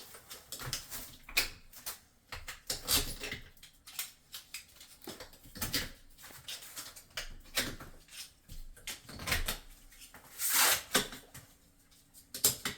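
Wall tiles being handled and set: irregular clicks, taps and short scrapes of tile against tile and wall, with a few longer scraping sounds.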